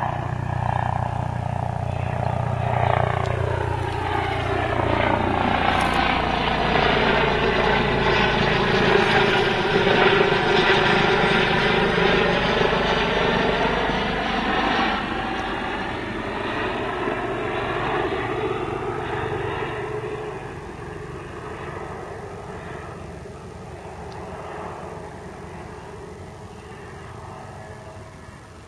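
Eurocopter EC135P2+ twin-turbine helicopter flying past overhead, its rotor and engine noise building to its loudest about ten seconds in. The sound then fades steadily as it flies away.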